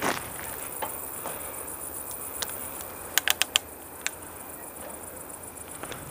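Crickets chirping in the dark, with scattered faint ticks and a quick run of four sharp clicks a little past halfway.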